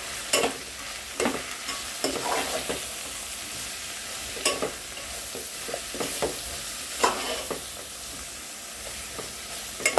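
Steel spoon stirring chopped vegetables and spice powders in a metal pot over a steady sizzle of frying, with irregular scrapes and knocks of the spoon against the pot, about eight in all.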